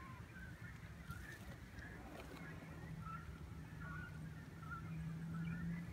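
A flock of cormorants calling from their roost in the trees: many short, overlapping calls that go on throughout.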